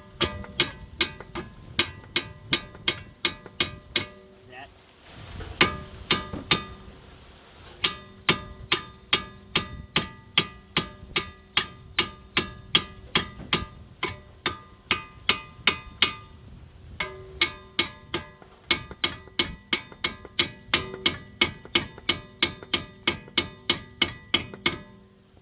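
Hammer striking steel suspension parts of a Chevy HHR to break a tapered stud loose from the steering knuckle: rapid, steady blows at about two to three a second, each ringing metallically, in long runs with a few short pauses.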